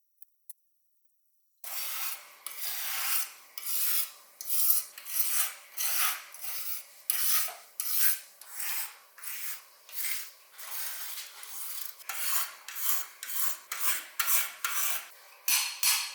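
Hand-held abrasive rubbing on a diecast model car part in quick, uneven back-and-forth rasping strokes, about two a second. The strokes begin after about a second and a half of silence.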